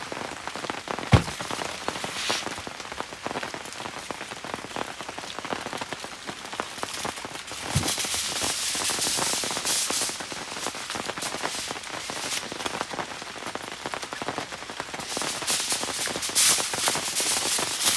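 Rain pattering steadily in a dense crackle of drops, with two sharp knocks, one about a second in and one near the middle, and louder crackly rustling in two stretches in the second half.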